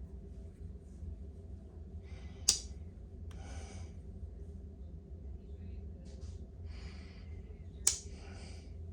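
Two sharp snaps, about two and a half seconds in and again near the end, from the blades of a small four-blade Congress pocket knife being worked on their backsprings, with soft breathing between them.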